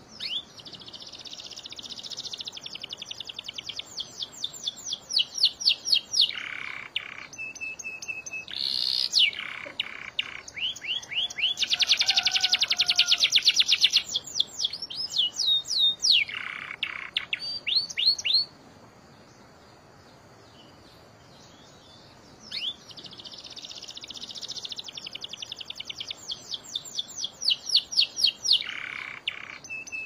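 Domestic canary singing a long song of rapid trills and rolling phrases with sweeping high notes, then falling silent for about four seconds two-thirds of the way through before starting up again with the same trills.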